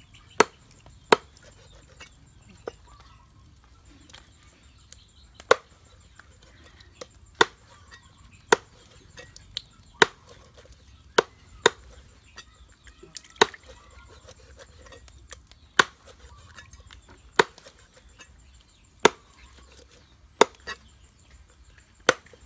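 Cleaver chopping water snake into pieces on a round wooden chopping block: sharp single knocks at an uneven pace, about one every second or two.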